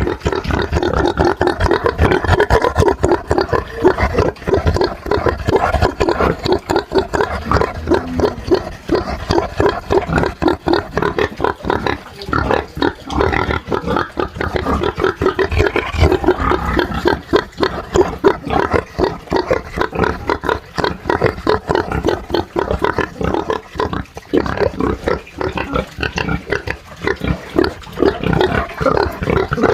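Pigs grunting in a continuous stream of short, closely spaced grunts.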